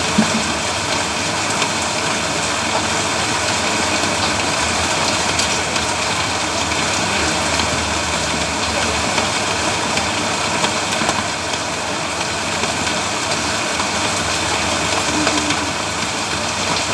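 Steady rain noise with an engine running underneath, even and unbroken throughout.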